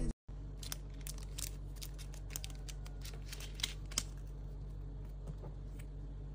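Photocards handled against shrink-wrapped album boxes: a run of small sharp clicks and taps through the first four seconds, the two loudest near the end of the run, over a steady low hum.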